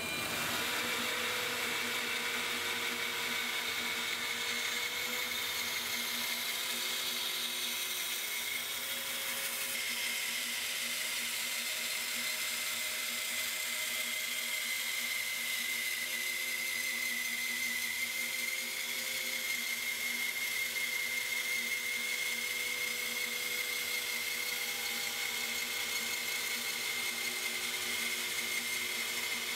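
Woodworking bandsaw fitted with an M42 bimetal blade, cutting through a dark hardwood board fed on edge: a steady machine whine mixed with the hiss of the blade in the wood.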